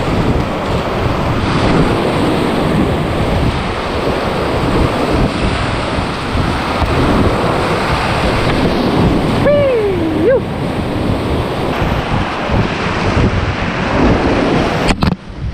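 Whitewater rapids rushing loudly and steadily right at the kayak, with water splashing over the boat and the camera. About ten seconds in comes a brief wavering shout, and near the end the rush drops away sharply for a moment.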